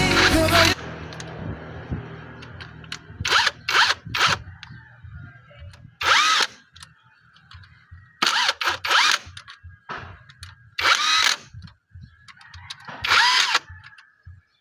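A power tool running in short bursts, about seven of them, each under a second with a brief whine, during work on a three-cylinder engine.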